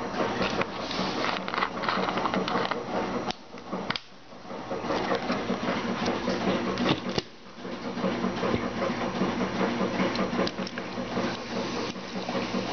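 A steady motor-like hum with rattling clicks, broken twice by brief drops. Near the end, cola is poured from a plastic bottle over ice in a glass.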